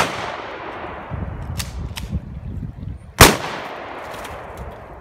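Two loud gunshots, one just as the sound begins and one a little over three seconds in. Each is followed by a long echo rolling off for a couple of seconds, with two faint clicks between them.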